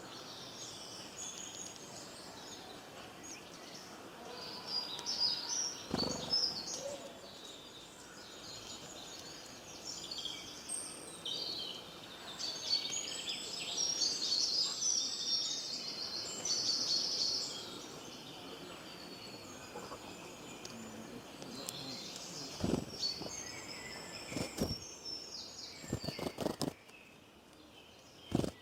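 Small birds chirping and singing in quick, high, overlapping phrases over a steady background hiss, with a few sharp knocks in the last few seconds.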